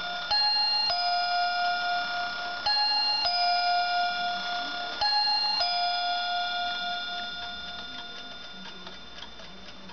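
Anker wall clock's chime striking three two-note 'ding-dong' pairs, a higher note then a lower, a couple of seconds apart. The ringing fades after the last pair, leaving the clock ticking.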